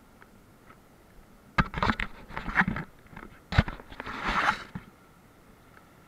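Close contact noise on the camera's housing: two sharp knocks about two seconds apart, each followed by about a second of crunching and scraping, over a faint, muffled background.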